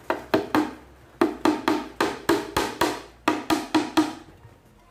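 Claw hammer nailing down a plywood panel, struck in quick runs of sharp knocks about four to five a second, with short pauses between runs.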